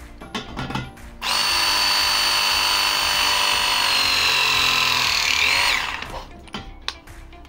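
Battery-powered pipe press tool crimping an 18 mm copper pipe fitting: its motor whines steadily for about four and a half seconds, starting about a second in, the pitch sagging slightly toward the end and rising briefly just before it stops.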